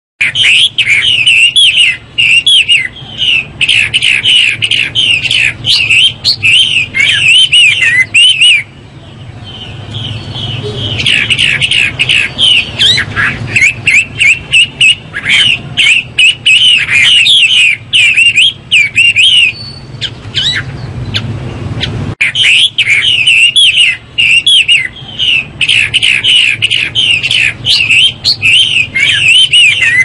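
Chinese hwamei (Garrulax canorus) singing: long, loud runs of rapid, varied sweeping notes, with brief pauses about nine and twenty seconds in.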